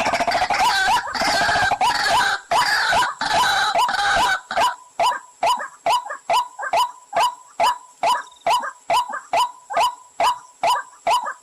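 Pullakodi (a water bird, a waterhen) calling over and over, as a recorded call used to lure the bird. For the first few seconds the calls come thick and harsh; after that they settle into a regular series of short, sharp notes, about two to three a second.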